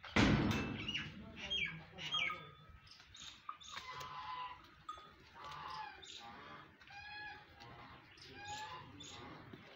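Goat bleating over and over in short, repeated calls, with a brief loud noise right at the start.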